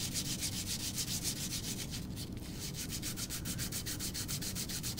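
Hand-sanding a small piece of metal with 400-grit sandpaper: quick, even back-and-forth scratching strokes, several a second, in a steady rhythm.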